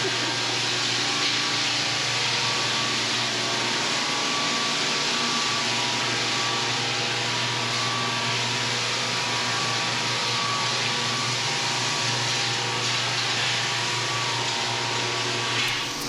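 8-inch EZ-8 drum floor sander running steadily on the wooden floor, a constant motor hum under an even rushing hiss.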